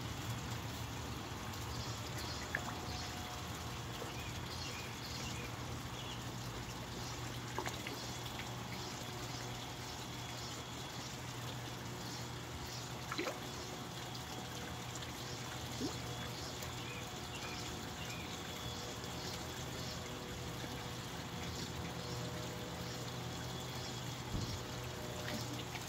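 Water trickling steadily into a garden pond, with a few small splashes from ducks feeding in the water.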